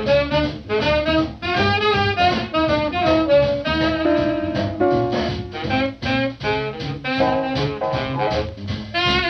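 Jazz music with horns carrying a lively tune over a steady beat and bass line.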